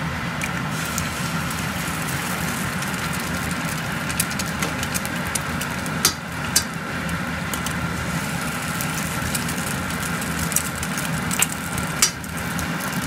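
Salami and onion frying in a stainless steel pan on an induction hob: a steady sizzle with small spattering crackles over a low hum. A sharp crack comes about six seconds in and again about twelve seconds in, as eggs are cracked on the pan's rim and dropped into the hot fat.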